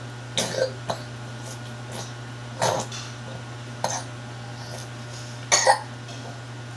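A toddler feeding himself from a plastic bowl with a metal spoon: a few short, separate eating noises from the spoon and his mouth, the loudest just before the end. A steady low hum runs underneath.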